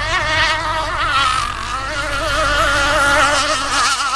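Small gas engine of a radio-control racing boat running on the water, a high-pitched buzz whose pitch wavers up and down. A low steady hum lies beneath.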